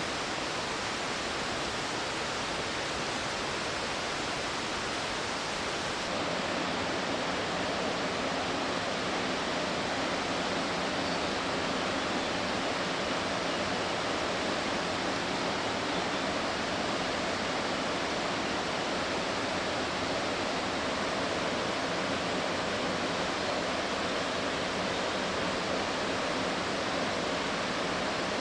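Waterfall: a steady rush of falling water, whose tone shifts slightly and grows a little louder about six seconds in.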